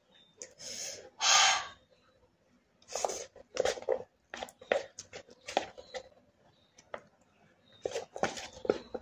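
A person slurping and chewing spicy instant ramen noodles, with a loud sharp slurp about a second in. More slurps follow a couple of seconds later, then wet chewing and short smacking clicks.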